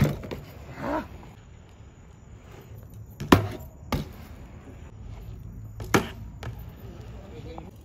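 Several sharp knocks a second or two apart, the loudest about three seconds in, over a steady low hum, with a brief rising call about a second in.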